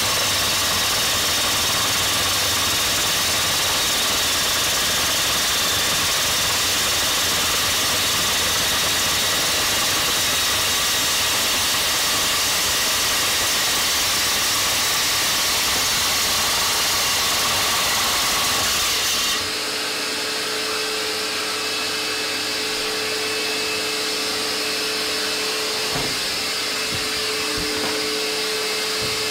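RT-160 handheld core drill running with its core bit cutting into clinker brick, a dust-extraction vacuum running with it: a loud steady grinding whine. About two-thirds of the way through the drill noise cuts off suddenly, leaving the vacuum's steady hum.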